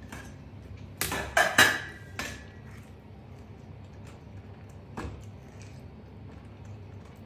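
Cooking pot and its metal lid clattering, a quick cluster of sharp clinks and knocks about a second in, then a single click a few seconds later over a low steady hum.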